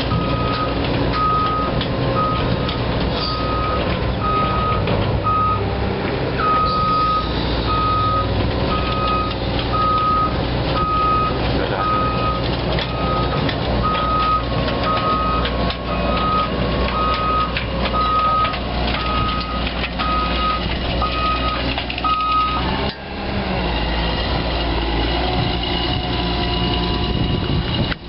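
Diesel engine of a Caterpillar hydraulic excavator on amphibious pontoon tracks running under load while its travel alarm beeps over and over as the machine crawls. The beeping stops about 23 seconds in, and the engine keeps running.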